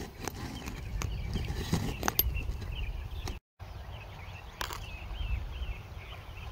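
Scattered light knocks and crunches of footsteps on gravel and of things being set down on a small camp table, over a steady low wind rumble on the microphone. Faint bird chirps run through the second half.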